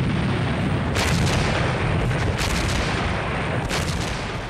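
Battle sound of gunfire and artillery: several sharp blasts, roughly a second or more apart, over a continuous low rumble.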